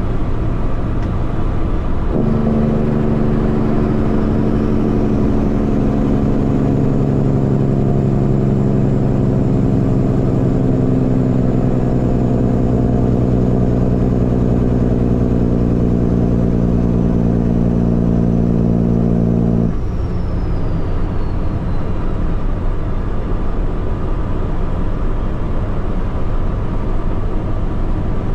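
Peterbilt semi truck's diesel engine running over steady road noise. About two seconds in, the engine note swells into a strong, steady drone, which cuts off sharply about twenty seconds in.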